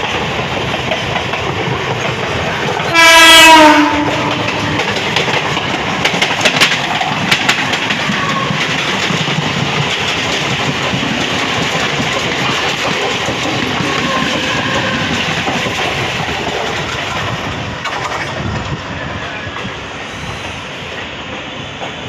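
Mumbai suburban local train running, its steady rumble and wheel clatter throughout. A loud horn blast of about a second, dropping slightly in pitch, sounds about three seconds in, and there are a few sharp clacks from the wheels a few seconds later.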